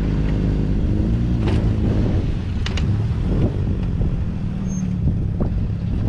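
Ford Ranger pickup's engine running steadily, with a few short clicks and knocks over it.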